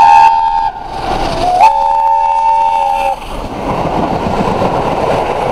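Peppercorn A1 steam locomotive 60163 Tornado sounding its chime whistle, a chord of several notes: one blast ends under a second in and a second blast lasts about a second and a half. After that comes a steady rushing noise as the engine and its coaches pass close by at speed, exhausting steam.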